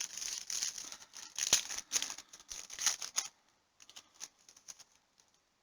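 Cellophane card-pack wrapper crinkling and rustling in the hands for about three seconds, followed by a few faint clicks and taps as the cards are handled.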